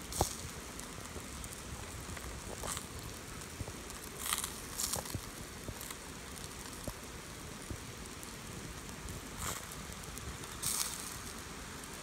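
Meat grilling on a wire grate over glowing charcoal: a steady low hiss broken by about half a dozen short sizzling spits and crackles.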